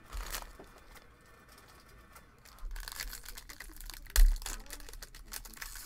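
Crinkly plastic wrapper of a 2022 Topps baseball card pack being handled and torn open by hand, with a sharp crackle about four seconds in.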